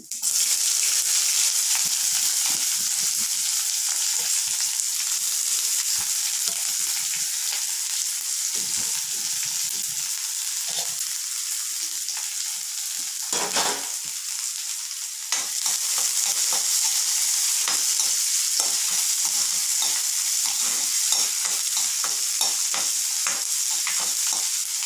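Chopped onions hitting hot tempering oil in an aluminium kadai, breaking into a loud sizzle at once. The frying hiss carries on while a steel spoon stirs and scrapes the onions around the pan, with many quick scrapes in the second half.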